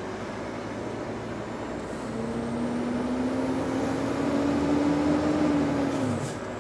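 MAN TGX lorry's diesel engine heard from inside the cab, pulling up the ferry link-span ramp: the engine note climbs slowly and grows louder, then drops away abruptly near the end as the driver comes off the throttle.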